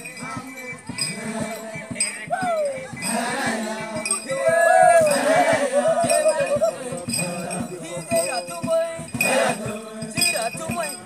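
A crowd of Suri men chanting and calling out as they march in, with wavering, rising and falling cries that peak about halfway through, over a busy clatter of short knocks.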